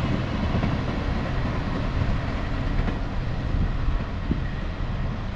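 Train rolling past on the railway track: a steady rumble of wheels on rails.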